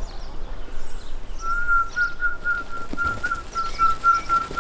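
A high whistle held on one pitch, broken into quick repeated pulses, starting about a second and a half in, over a low rumble, with faint small-bird chirps above.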